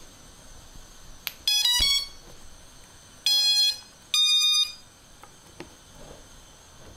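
An FPV cinewhoop quad's ESCs play their startup tones through the motors as the flight battery is plugged in: a click, three quick rising notes, then two longer beeps about a second apart. The beeps are the usual sign that the ESCs have powered up and see the flight controller's signal.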